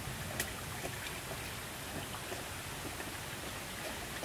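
Steady hiss of a small stream trickling over rocks, with a single sharp click about half a second in.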